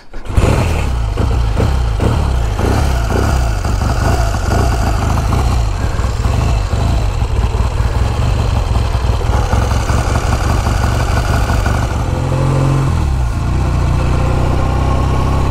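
1956 Triumph T110's 650 cc parallel-twin engine running steadily at idle. It comes in suddenly at the start, and its note shifts briefly about 13 seconds in.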